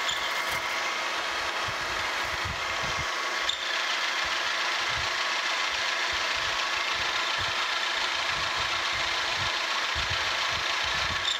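Vertical milling machine running a 3/4-inch end mill through a slot in a pillow block bearing housing: a steady whine with an uneven low rumble from the cut. The workpiece is shifting a little in the vise under the cut, not gripped firmly enough.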